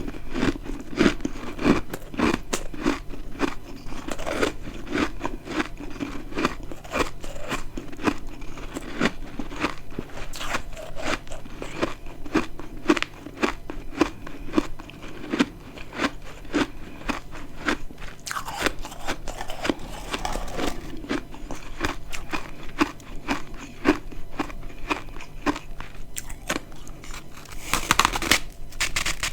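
Close-miked crunching and chewing of dry, crispy freezer-frost chunks, a rapid irregular patter of crackling crunches with a louder flurry near the end.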